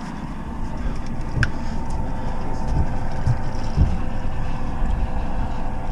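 Boat engine running steadily under wind rumble on the microphone, with a few faint clicks.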